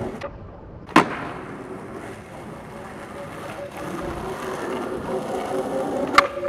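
Skateboard wheels rolling on asphalt, with a sharp clack of the board hitting the ground about a second in. The rolling grows louder as the board comes closer, and a sharp pop of the tail comes near the end.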